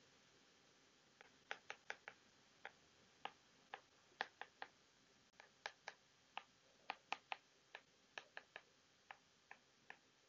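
A stylus tapping and clicking against an iPad's glass screen during handwriting: irregular sharp ticks, about two or three a second, over a faint background hiss.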